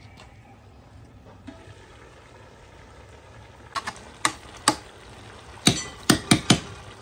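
Metal ladle stirring greens in a large aluminium pot and knocking against the pot: three single clinks about four seconds in, then four quick taps a little later.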